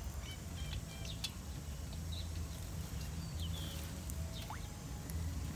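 Small scattered clicks of hands working a fish hook out of a small fish's mouth, over a steady low rumble, with a few short high chirps.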